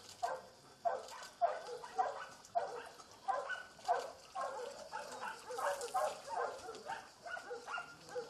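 Dogs barking repeatedly, a bark roughly every half second.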